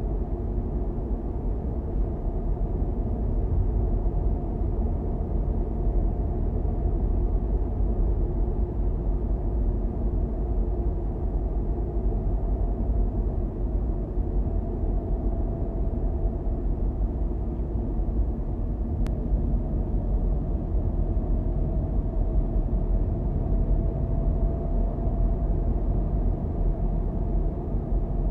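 Steady low rumble of a car driving on city streets, the road and engine noise of the moving car, with a faint tone that rises slowly in pitch in the second half.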